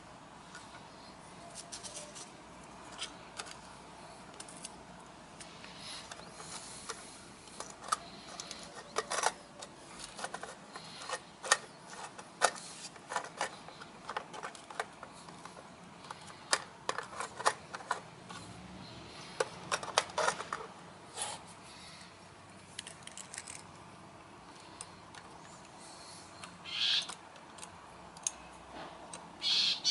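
Irregular light clicks, taps and knocks of small plastic and diecast parts being handled: miniature trash carts set down and tipped at the hopper of a 1/34-scale diecast rear-loader garbage truck, and the truck's tailgate worked by hand. There are a couple of brief scrapes near the end.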